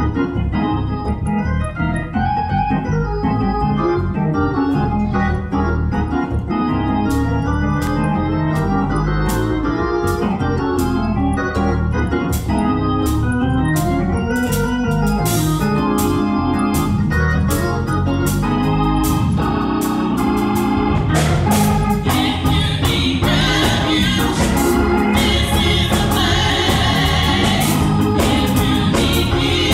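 Gospel organ music, a keyboard organ playing chords and runs, joined by a steady beat of sharp hits from about seven seconds in. Near the end, a group of women's voices comes in singing over it.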